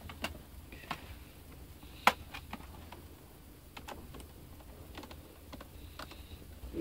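Netbook's plastic bottom cover being pressed into place and a small screwdriver turning a screw into it: scattered light clicks and ticks, with one sharp click about two seconds in.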